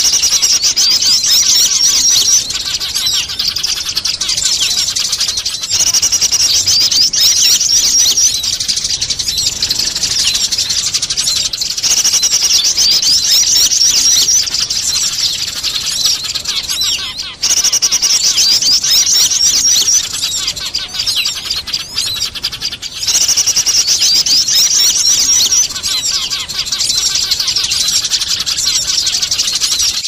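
Bird-lure recording of small birds chattering, led by Eurasian tree sparrows squabbling. Rapid, high chirping comes in loud bursts of two to three seconds, about every six seconds, with quieter chirping in between.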